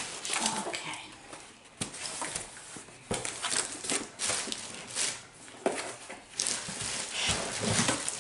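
Clear plastic bag liner crinkling and rustling inside a cardboard box as plastic skincare bottles are moved around in it, with a few sharp knocks of bottles against each other.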